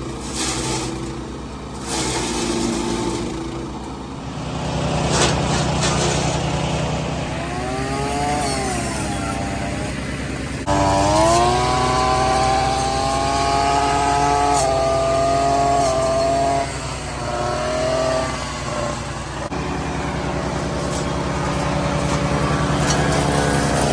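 Small gasoline engine of outdoor power equipment running, its pitch rising and falling as it revs, with abrupt changes in the sound about 11 and 19.5 seconds in.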